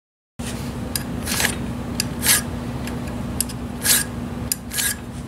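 Flat hand file draw-filing the high spots off the crushed lead-in threads of a crankshaft end: a series of short rasping strokes about a second apart, over a steady low hum.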